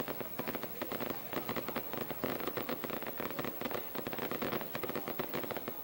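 Firecrackers from the fireworks payload of a Brazilian festival balloon (balão fogueteiro) bursting in a dense, rapid, uneven crackle of sharp pops.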